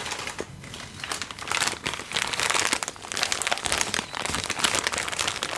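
Something crinkled and crumpled by hand close to the microphone, a dense run of small crackles that grows louder about a second and a half in.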